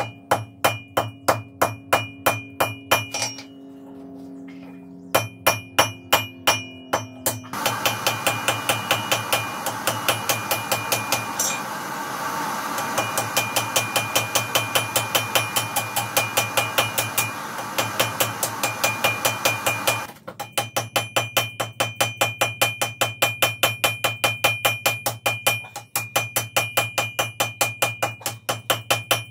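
Hand hammer striking red-hot wrought iron held in tongs on an anvil, a steady rhythm of about three blows a second, each with a bright anvil ring. The blows pause briefly a few seconds in, and a steady rushing noise sits under them through the middle stretch.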